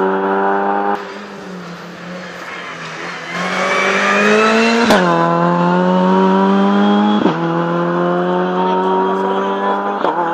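Rally car engine under hard acceleration, its pitch climbing and then dropping sharply at gear changes about five, seven and ten seconds in. It is loudest from about four seconds in.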